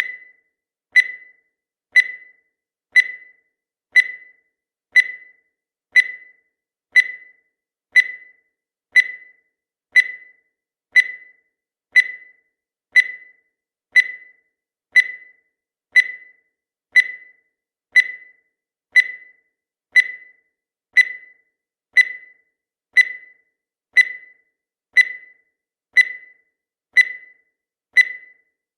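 Countdown timer sound effect: a short beep once every second, each fading away quickly, in a steady unbroken rhythm.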